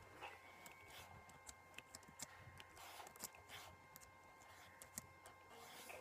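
Near silence: room tone with faint scattered clicks and soft rustles from a handheld phone being moved.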